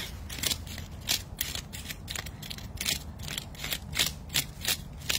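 Handheld fish scaler scraping the scales off a large mutton snapper on a wooden cutting board, in quick repeated rasping strokes about three a second.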